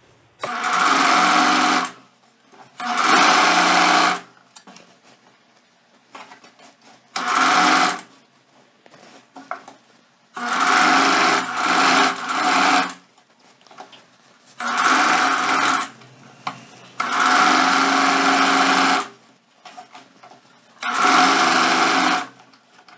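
Singer Facilita electric sewing machine running in short bursts, about seven runs of one to three seconds with pauses between, as it topstitches a seam over stretched elastic on a waistband.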